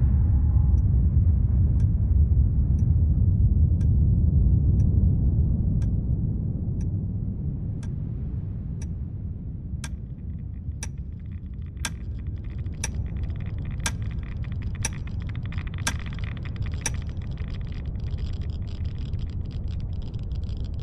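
Deep rumble of a nuclear explosion, strongest at first and dying away over several seconds, while a clock ticks once a second. The ticks grow louder as the rumble fades and stop a few seconds before the end.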